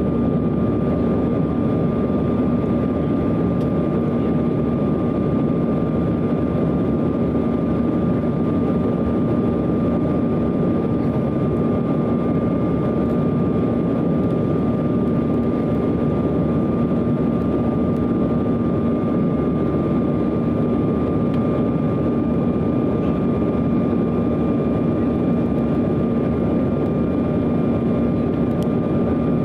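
Cabin noise inside a Bombardier CRJ-900 airliner in descent: the steady drone of its rear-mounted GE CF34 turbofan engines and rushing airflow, with a constant low hum and a thin high whine over it.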